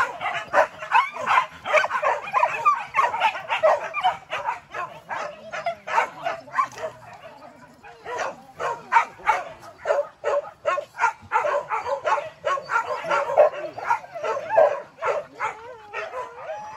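A pack of hunting dogs barking and yelping in rapid, overlapping bursts while hunting wild boar. The barking thins for a moment about seven seconds in, then picks up again just as thickly.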